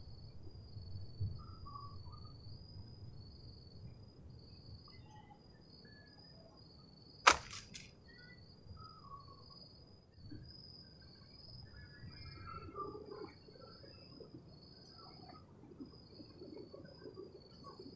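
A steady chorus of insects trilling in two high, pulsing pitches, with scattered short bird chirps. One sharp click about seven seconds in is the loudest sound.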